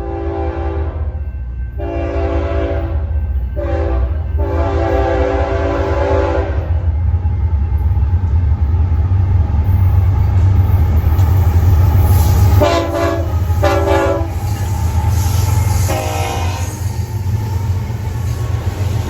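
BNSF intermodal train's locomotive horn sounding long, long, short, long, the grade-crossing signal, over the low rumble of the passing diesel locomotives and cars. The rumble grows louder as the train goes by, and later the horn gives two short blasts and then a fainter one.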